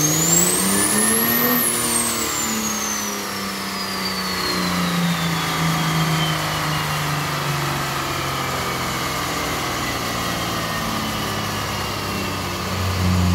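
Turbocharged diesel Dodge Ram pickup on a chassis dyno at the end of a pull: the engine revs climb for about a second and a half, then fall back off the throttle. A high turbo whistle peaks with them and then slides slowly down as the turbo spools down.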